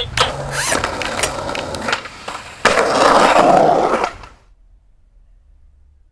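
Skateboard on concrete: wheels rolling with repeated sharp clacks of the board, then a louder rough scraping rush for about a second and a half that dies away.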